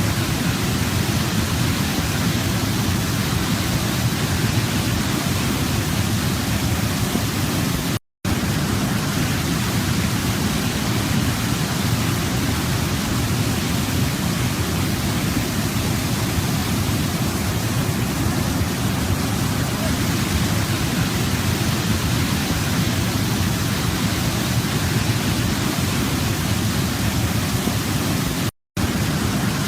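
Waterfall rushing: a steady, dense roar of falling water, heaviest in the low range. It cuts out to silence for a split second twice, about eight seconds in and near the end.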